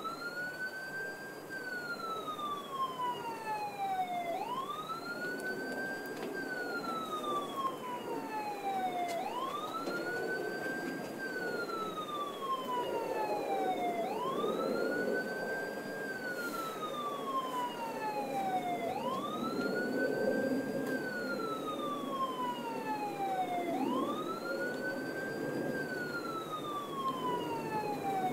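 Police boat siren wailing in a slow repeating cycle, about every five seconds: each cycle rises quickly, then falls slowly and evenly. Steady background noise lies underneath.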